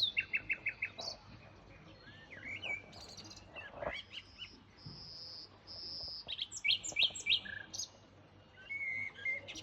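Birds chirping and singing: quick runs of short chirps, sliding notes and a couple of clear held whistles.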